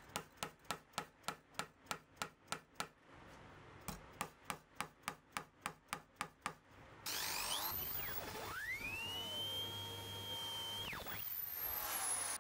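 Two runs of rapid, even taps, about five a second, as maple dowels are driven into old screw holes in a bass neck heel. About seven seconds in, a small power tool starts with a hiss, its motor whine rising, holding steady and falling away near the end.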